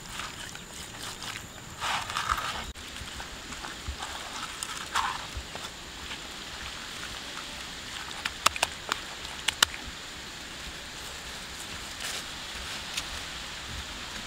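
Hands kneading and squeezing raw pork pieces in a wet chili marinade in a pan: soft wet squelches and smacks, with a few sharp clicks partway through.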